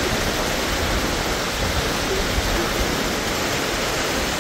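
Steady rushing noise of wind and water from a boat under way, with wind buffeting the microphone and no clear engine note.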